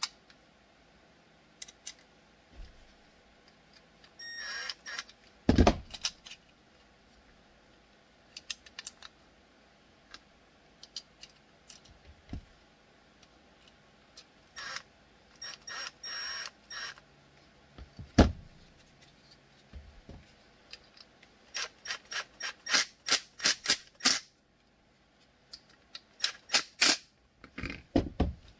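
Small rivets and Kydex parts handled and fitted together on a cutting mat: scattered light clicks and taps, a louder knock about six seconds in and another about eighteen seconds in, then quick runs of clicking over the last several seconds.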